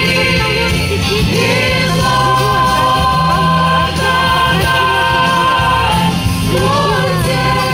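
A choir of young women singing a Christmas hymn in long held notes.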